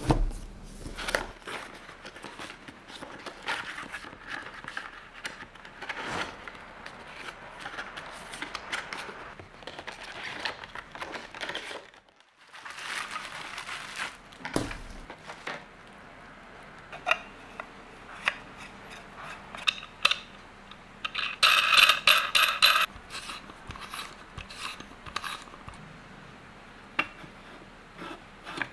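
Hands unboxing a USB microphone: the cardboard box and plastic bubble wrap rustle and scrape, with light knocks of hard parts, and a rapid run of clicks lasting about a second and a half a little past the two-thirds mark.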